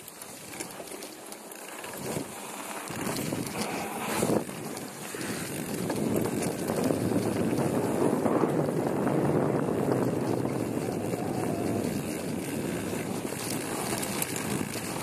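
Downhill mountain bike riding fast over snow: the tyres rushing through the snow and wind buffeting the microphone, with a couple of knocks from the bike, getting louder about five seconds in as speed builds.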